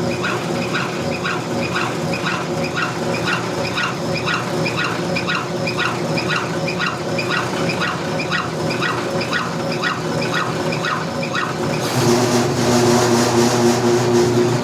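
Brake lathe running with its cutting bit taking a cut off a C6 automatic transmission clutch backing plate, giving a regular squeak about two and a half times a second. About twelve seconds in, the sound changes to a louder, hissier running with a steady hum.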